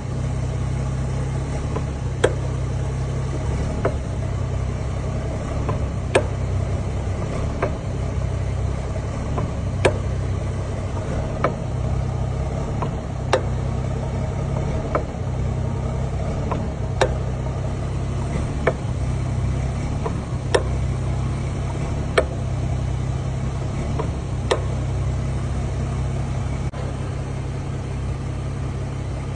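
Wavetrac limited-slip differential in a BMW M140i xDrive clunking: sharp single knocks every one and a half to two seconds over the car's steady low hum, stopping a few seconds before the end. The cause of the clunk is not yet known.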